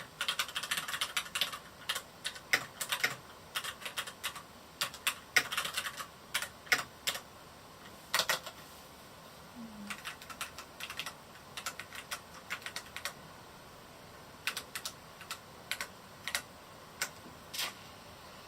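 Typing on a Varmilo Miya68 mechanical keyboard with Cherry MX Red linear switches. Quick runs of keystrokes fill the first several seconds, then the presses come slower and more scattered, with the last one near the end.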